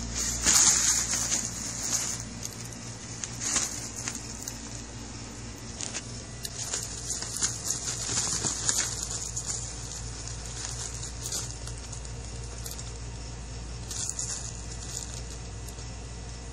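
A fabric cat tunnel rustling and scuffing as a cat scrambles and bats about inside it. The rustling comes in irregular bursts, loudest about half a second in and again around eight to nine seconds.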